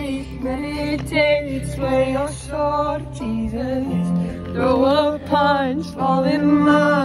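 Music: a song with a sung vocal line over instrumental backing.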